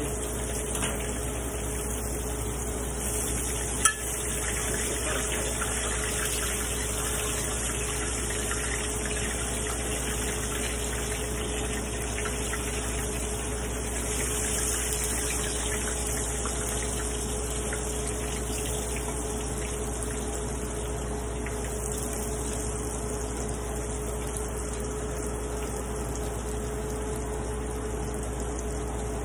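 Breaded shrimp sizzling in hot oil in a frying pan, the sizzle swelling a few times as more pieces go in, over a steady hum. A single sharp click about four seconds in.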